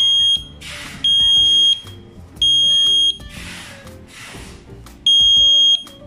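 TUYA Wi-Fi smoke detector sounding its alarm: loud, high-pitched beeps in the three-beep pattern. About three quarters of a second apart come three beeps, then a pause, and the next set begins near the end. This temporal-three pattern is the standard smoke-alarm evacuation signal, here set off by smoke being detected. Background music plays underneath.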